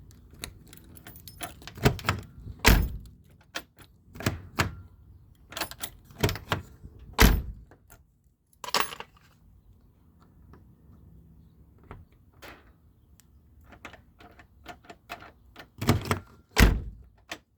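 Keys jangling, with irregular sharp clicks and knocks of a Ford Tibbe lock being worked by key. The loudest knocks come about two to three seconds in, about seven seconds in, and twice near the end.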